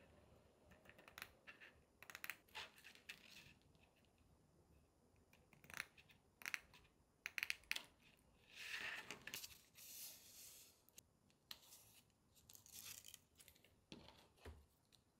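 Scissors snipping through a plastic pot-bottom mesh, a strand at a time: a run of sharp, uneven clicks and crunches, with a short rustle of the mesh a little past the middle and a soft knock near the end.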